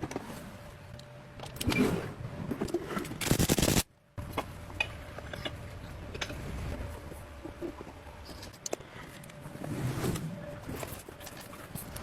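Irregular scraping, clicks and knocks of hand work on an engine, with a louder scraping rush about three seconds in that cuts off abruptly for a moment.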